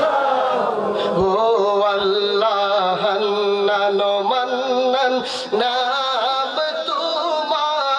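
A man singing an Islamic devotional song (a sung zikr of Allah's names) in long, drawn-out melismatic notes that waver and glide without clear words.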